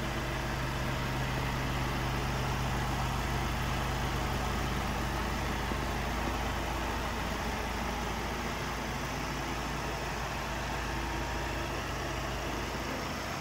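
Ford Transit Custom van's diesel engine idling steadily and evenly.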